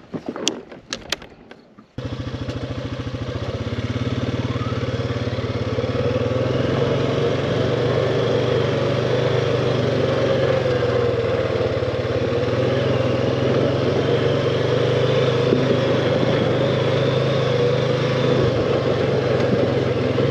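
A few clicks and knocks, then about two seconds in a four-wheeler (ATV) engine starts being heard, running steadily as the machine is ridden and growing slightly louder over the next few seconds.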